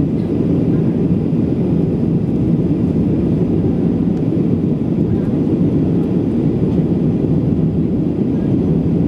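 Steady cabin noise inside a Boeing 737-900 during the climb after takeoff: its CFM56-7B engines and the air rushing past the fuselage make a loud, even, low drone.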